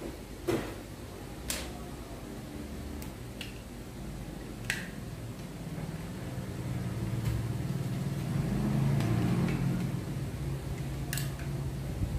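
Handling noise from AA batteries and a small plastic remote being picked up and set down: a few scattered sharp clicks and taps. Under them, a low hum that grows louder from about six seconds in and eases off near the end.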